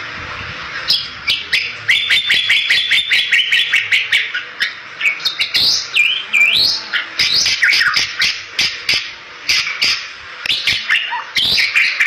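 Bali myna singing a fast, chattering song: sharp clicking notes starting about a second in, a quick run of repeated notes, then whistled notes gliding up and down, over a steady hiss.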